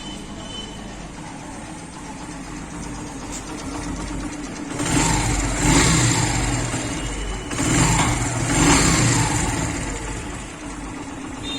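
Yamaha Crux single-cylinder four-stroke engine idling, then revved twice and settling back to idle. It is running with its timing chain tensioner just repaired after a broken spring, a check that the timing chain noise has gone.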